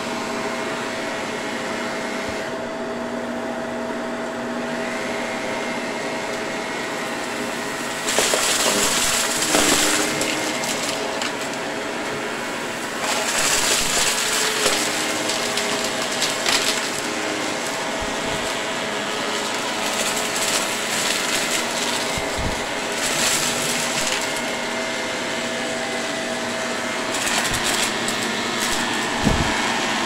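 Shark Powered Lift-Away vacuum running steadily with a constant motor whine, getting louder with hiss and clatter in several spells as it sucks up a pile of mixed floor debris.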